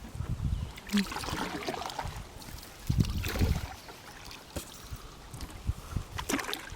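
Canoe being paddled: swishes and splashes of paddle strokes in the water with trickling drips. The two biggest swells come near the start and about three seconds in.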